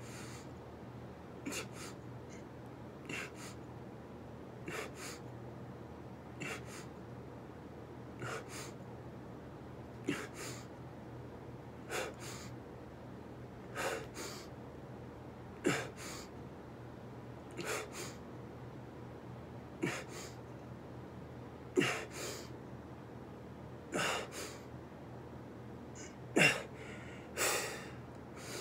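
A man breathing hard through a set of push-ups, one sharp, gasping breath with each rep, about one every two seconds. The breaths get louder and a little slower toward the end as he tires.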